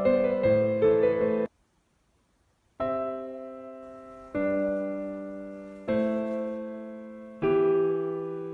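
Background piano music: a run of quick notes, a sudden break of silence lasting just over a second, then slow chords struck about every second and a half, each ringing and fading.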